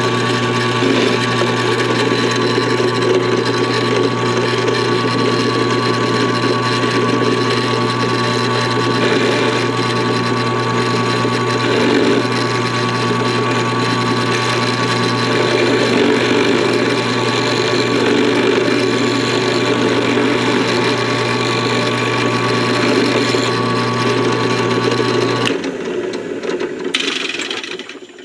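Drill press running with an end mill cutting into a die-cast metal model car base: a steady motor hum under a rough cutting noise. The motor is switched off about 25 seconds in and the sound dies away.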